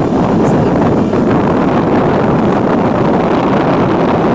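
Wind rushing loudly and steadily over the microphone of a phone held up on a moving motor scooter, with the scooter's running blurred into it.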